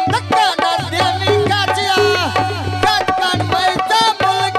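Live Punjabi folk music amplified through a microphone and loudspeaker: a male singer holding long, bending notes over a sustained harmonium and a hand drum playing a steady rhythm.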